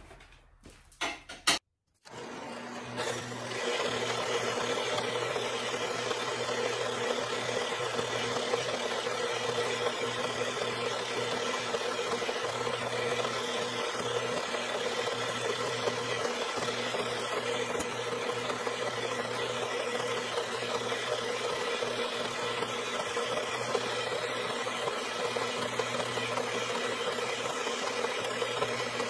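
A short knock about a second in, then a horizontal metal-cutting band saw starts up and runs steadily, its motor humming under the dense buzz of the blade cutting steel plate.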